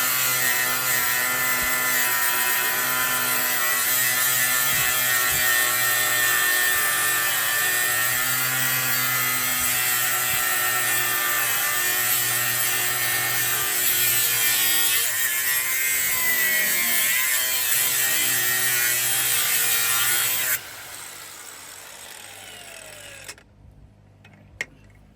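Handheld electric power tool cutting into the truck's steel frame for the C-notch, running steadily at a high whine. About twenty seconds in it is switched off and its whine falls as it spins down, followed by a few light clicks.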